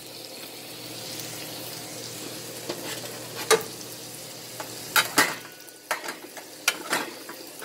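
Shrimp, onions and bell peppers sizzling in a nonstick skillet, a steady frying hiss. From about three and a half seconds in, a few sharp clicks and knocks cut through it.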